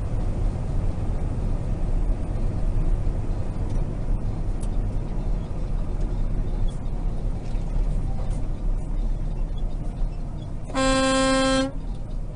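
Steady low road-and-engine rumble inside a truck cab, with a single horn blast just under a second long near the end.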